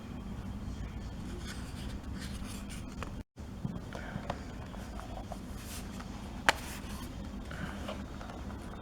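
Light scraping, rubbing and small clicks as a laptop is handled, over a steady background hum, with one sharp click about two-thirds of the way through.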